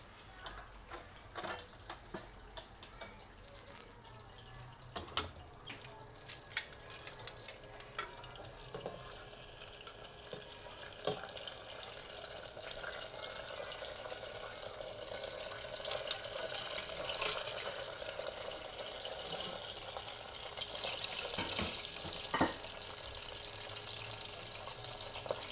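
Dishes and utensils clinking sharply for the first several seconds, then a kitchen tap running steadily into a sink, growing louder from about ten seconds in.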